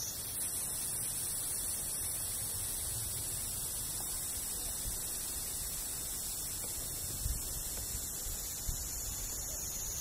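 Niiniizemi (Kaempfer cicada, Platypleura kaempferi) singing: a steady, high-pitched continuous buzz.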